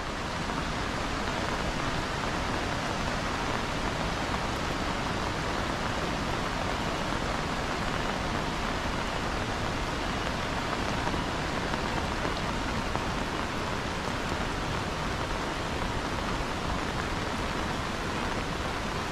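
Heavy rain falling steadily over flooded rice paddies and vegetation, an even, unbroken hiss.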